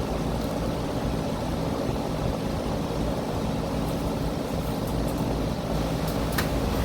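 Outdoor central air conditioner condensing unit running: a steady low compressor hum under the even rush of the condenser fan.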